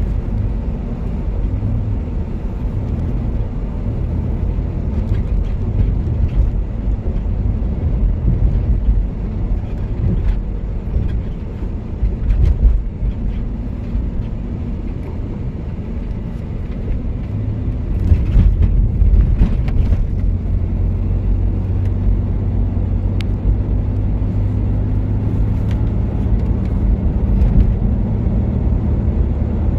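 Car interior noise while driving: a steady low rumble of engine and tyres, with a few brief clicks and rattles about two-thirds of the way through.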